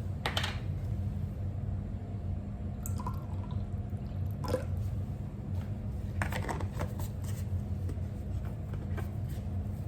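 Orange juice being mixed in a dish by hand: liquid sloshing and dripping, with a few short splashes and taps, over a steady low hum.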